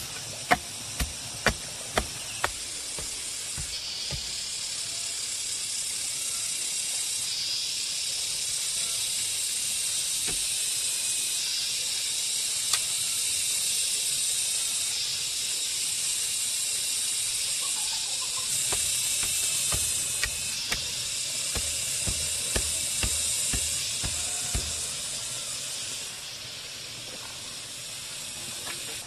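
A wooden stick tamping soil around a bamboo fence post, knocking about twice a second for the first two seconds or so. Then a high, steady cicada hiss takes over, coming in stretches of a few seconds that start and stop abruptly, with a few dull thuds of a hoe in soil beneath it.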